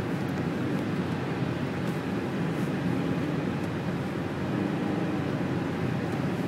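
Steady road and engine noise heard inside the cabin of a car driving at expressway speed, a low, even rumble.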